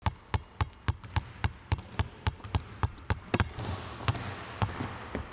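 Basketball dribbled on a hardwood court: sharp bounces in a steady rhythm of about three to four a second, turning sparser and irregular after about three and a half seconds, over a low steady hum.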